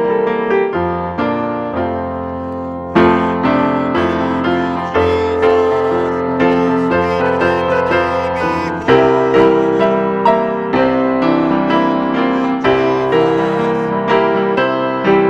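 Piano playing slow, sustained chords, each struck and held before the next, with no singing over it.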